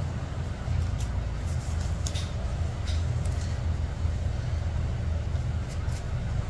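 A steady low rumble of background noise, with a few faint clicks from stainless nail nippers snipping at the edge of a toenail.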